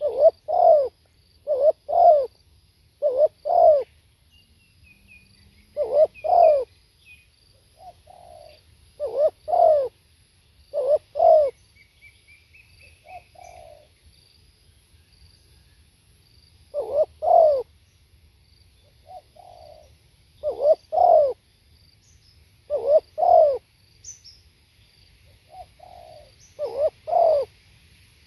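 Spotted dove cooing: loud repeated coo phrases, the notes mostly in pairs, in bouts with short pauses between them. Faint chirps of a small bird sound in the background a few times.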